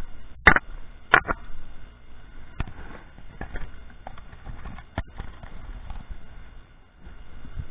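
Footsteps on loose creek-bank stones: irregular sharp clacks and knocks of rock on rock, the loudest about half a second and just over a second in.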